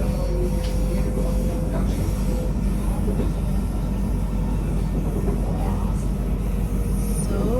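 Passenger train running on the rails, heard from inside the carriage: a steady low rumble of wheels and running gear, with a faint steady whine for the first couple of seconds.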